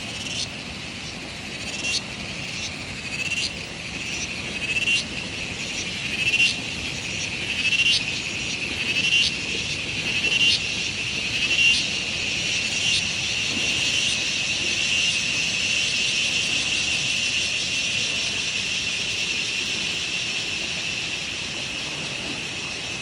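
A chorus of calling insects: a steady high-pitched trill. Over the first half, sharp pulsed calls come about every second and a half, then it settles into a continuous drone.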